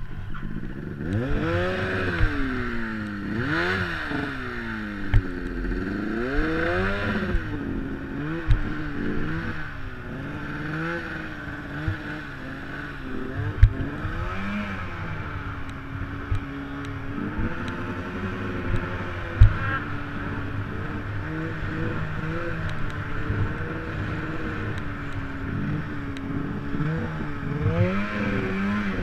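Turbocharged Arctic Cat M8 snowmobile's two-stroke twin engine revving up and down repeatedly as it ploughs through deep powder, then holding a steadier pitch before rising again near the end. A few sharp knocks cut through the engine sound.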